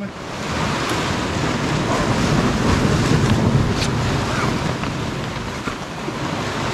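Wind buffeting the microphone over the wash of sea waves against a rocky shore, a steady, rough rushing noise.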